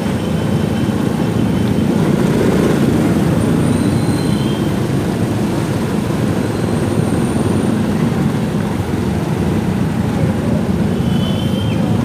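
Motorcycle engine running steadily at low speed in slow city traffic, a constant low drone mixed with the noise of the surrounding road traffic. A few faint, brief high whistles sound over it.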